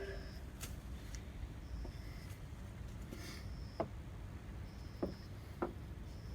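A few light, sharp clicks and taps of tools and parts being handled during engine drive-belt work, over a steady low rumble, with a faint short high chirp recurring every second or so.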